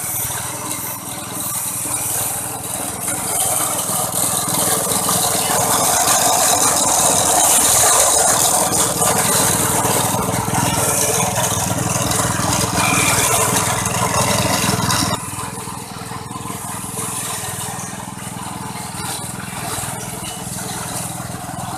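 Motor-driven coconut grating machine running steadily, its motor humming while the spinning grater shreds coconut flesh fed into the hopper with a rough, rattling hiss. The sound gets somewhat quieter about two-thirds of the way through.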